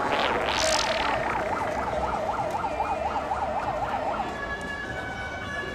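Emergency vehicle siren wailing quickly up and down, which stops about four seconds in. A short whoosh swells and fades in the first second.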